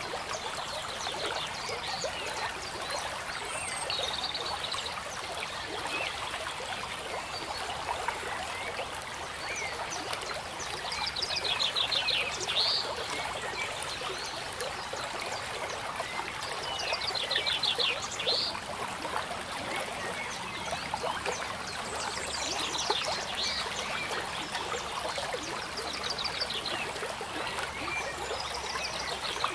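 Steady trickle of a stream, with a short, fast trilled call coming back every few seconds over it.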